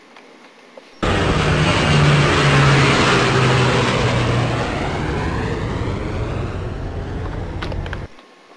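Loud vehicle engine sound effect, cut in suddenly about a second in, with a low hum that drops away midway and a sweeping, passing-by quality. It cuts off abruptly after about seven seconds.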